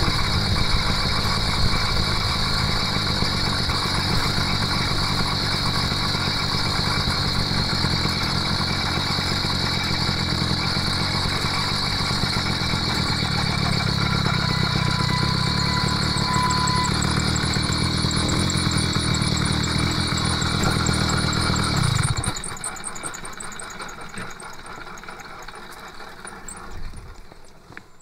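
The 80cc two-stroke kit engine of a motorized bicycle runs steadily under way, then stops abruptly about three-quarters of the way through. Only a much fainter rolling, rattling noise with a few knocks remains.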